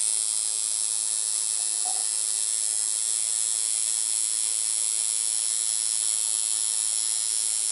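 Tattoo machine running, a steady high-pitched electric buzz that holds an even pitch and level without a break.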